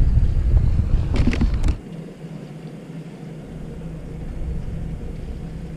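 Wind rumbling on the microphone, with a short clatter of handling gear about a second in. The wind drops away just under two seconds in, leaving a low steady hum.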